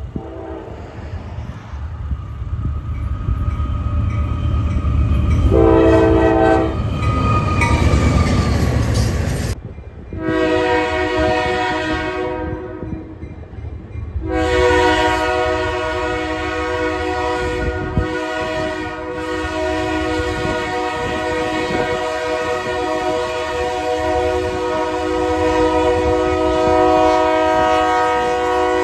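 A train passes with a heavy rumble, and a short train horn blast sounds about six seconds in. After a cut near ten seconds, a train's multi-note air horn sounds a long held chord. It eases off briefly and then resumes, holding steadily to the end.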